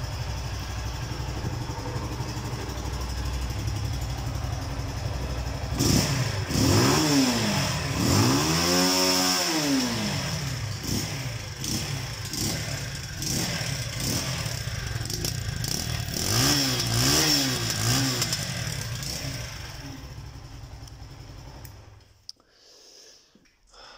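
Motoland Voyage 200's 200 cc single-cylinder engine idling, then revved several times, the pitch rising and falling with each blip. It cuts out about 22 seconds in.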